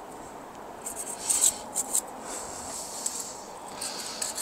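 Quick scraping strokes on metal, mostly about a second in with fainter ones later. It is hand-scratching at a seized fitting on a church bell's hanging, to clean it so penetrating oil can work in.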